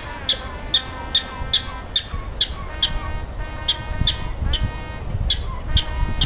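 Prairie dog barking: a rapid, even series of short, sharp, high chirp-like barks, about two to three a second.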